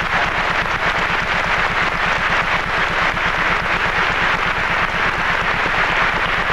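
Theatre audience applauding in a dense, steady clapping, with a low hum underneath.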